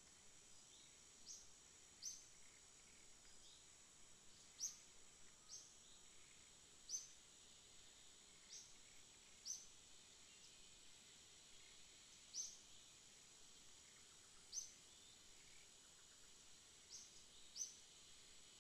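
Near silence with faint forest ambience: a steady high-pitched insect drone, with short high chirps about every one to three seconds.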